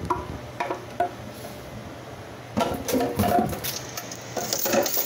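Kitchen things being handled on a counter: a few light knocks and clinks, then two short bouts of clattering and rustling, about two and a half and four and a half seconds in.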